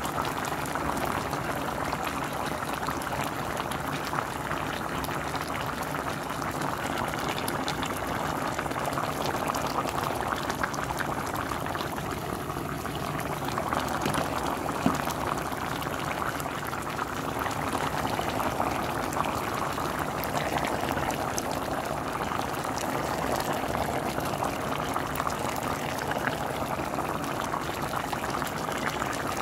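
Pot of green beans, potatoes and ham hock boiling in its broth: a steady bubbling with many small pops.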